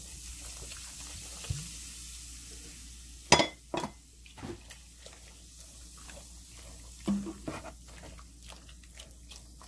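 Lemon sparkling water fizzing in a tub of water-kimchi broth, a faint steady hiss, then a wooden spoon stirring the vegetables and knocking against the container several times, the loudest knock about three seconds in.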